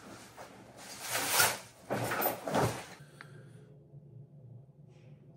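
Rustling and swishing of a garment bag, clothes and a backpack handled by someone walking in, in several surges over the first three seconds, then only a faint steady low hum of room tone.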